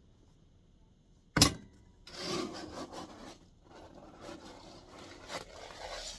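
A container of ice-melt salt being opened and dug into: one sharp snap or knock about a second and a half in, then several seconds of uneven scraping and rustling.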